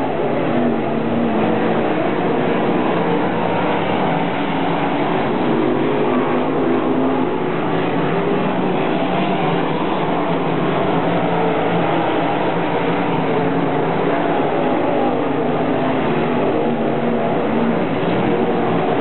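RaceSaver 305 sprint cars' small-block V8 engines racing on a dirt oval: a loud, unbroken drone of several engines whose pitch keeps rising and falling as the cars power through the turns and down the straights.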